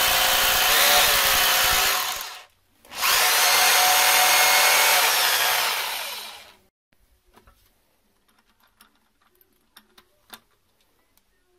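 Bosch hammer drill with a masonry bit drilling into a concrete ledge, run in two bursts of a few seconds each with a short pause between, stopping about six and a half seconds in. Faint handling clicks follow.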